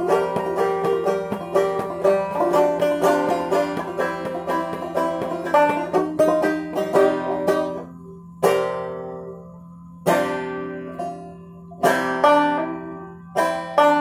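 Five-string banjo played clawhammer style in fCGCD tuning: a steady run of frailed notes for about eight seconds, then the tune slows to single strummed chords, each left to ring out and fade, a second or two apart, as it winds to its close.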